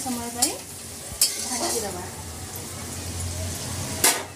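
Diced potato, carrot and peas sizzling in oil in a metal kadai while a metal spatula stirs and scrapes the pan. The spatula clinks sharply against the pan a few times, loudest near the end.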